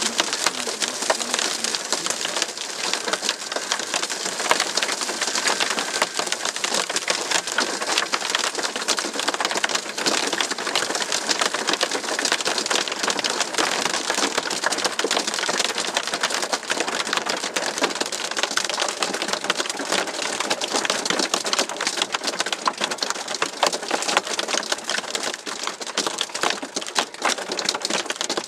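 Hail and heavy rain pelting the car's roof and windshield, a dense, continuous clatter of small impacts heard from inside the car. The hail is nickel to quarter sized.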